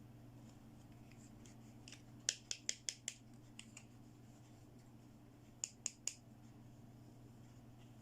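Quick, sharp clicks from handling pieces of a toy doctor playset: a run of five about two seconds in, then three more near six seconds, over a steady low hum.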